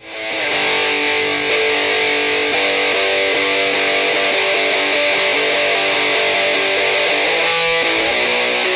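Guitar-driven rock song with strummed electric guitar, starting suddenly and playing loud and steady.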